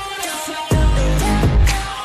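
Pop/hip-hop backing music: a steady beat with a heavy bass hit about two-thirds of a second in, over held instrument notes and sharp drum strokes.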